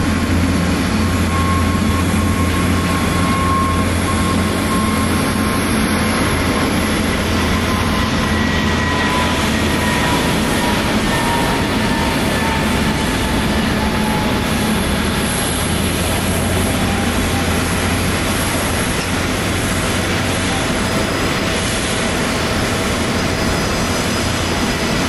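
Airbus airliner's turbofan engines running, a steady loud rumble with a faint whine that slowly falls in pitch.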